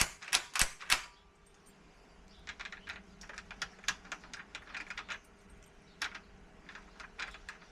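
Sharp metallic clicks and scrapes of a key being worked into a patio door lock cylinder that it won't go into easily: a loud flurry at first, then quieter bursts of clicking.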